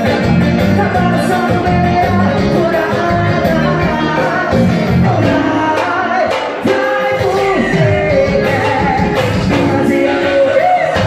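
Pisadinha forró song: a lead vocal sung over a steady, repeating bass line.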